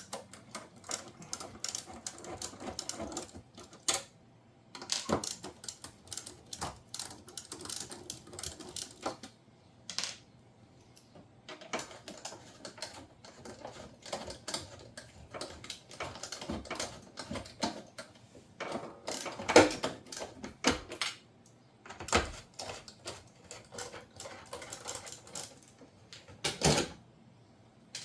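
Irregular clicking, tapping and rattling of hands and tools working on a dishwasher's plastic and metal panels and screws, with one sharper knock about two-thirds of the way through.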